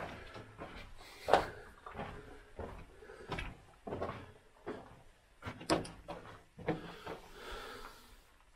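Footsteps crunching and scuffing on the loose rock floor of a mine tunnel: irregular knocks about once a second, the loudest a little over a second in.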